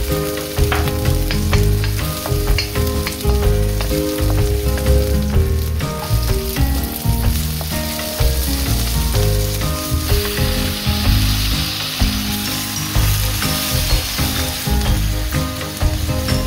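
Chopped scallions and onion sizzling in hot oil in a wok, stirred with a wooden spatula that knocks and scrapes against the pan. The sizzle grows louder and hissier about ten seconds in.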